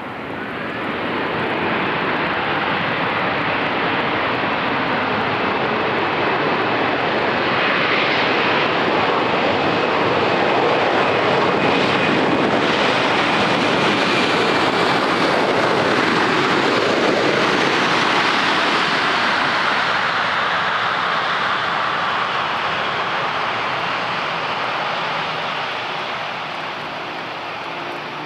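An airliner's engines passing close by: a loud, even rush that builds over the first couple of seconds, holds through the middle with a faint high whine on top, and slowly fades away.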